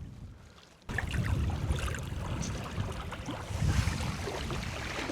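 Outdoor wind buffeting the microphone, an uneven low rumble with hiss and small crackles over it. It gets suddenly louder about a second in.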